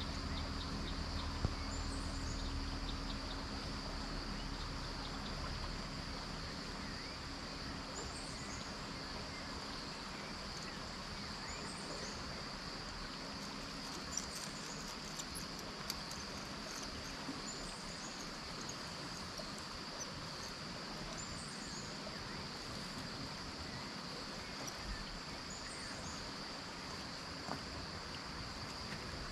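Outdoor ambience by a flowing canal: a steady high insect drone over the hiss of moving water, with short high bird chirps repeating every couple of seconds. A low hum in the first few seconds fades away.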